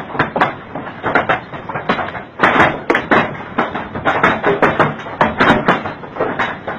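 Large hailstones, orange-sized, pelting down in a dense, irregular clatter of hard strikes, several a second.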